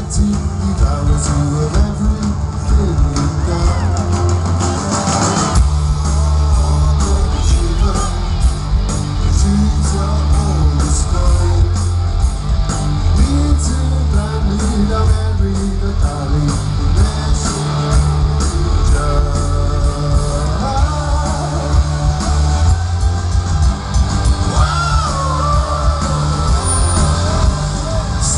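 Live rock band playing over a festival PA, heard from within the crowd: drums keep a steady beat under heavy bass and electric guitars.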